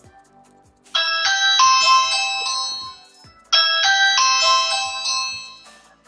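Ring doorbell chime tone sounding twice after the Ring Video Doorbell button is pressed, a quick run of bright bell notes each time that rings out for about two seconds. The first run starts about a second in, the second about three and a half seconds in.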